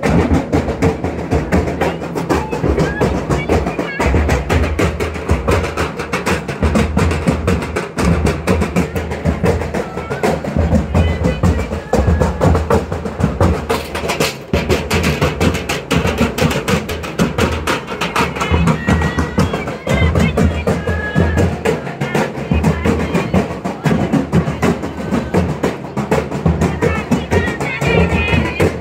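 Folk dance music: a fast, steady drumbeat with singing voices over it.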